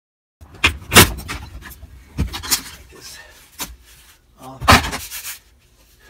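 Sharp knocks and clatter of a car's plastic dashboard trim and hand tools being handled, about half a dozen in all, with rubbing and scraping between them.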